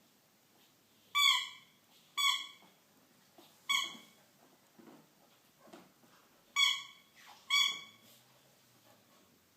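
A dog's squeaky toy squeaking five times in short, high squeaks, two close together, one alone, then two more close together, as a puppy bites it.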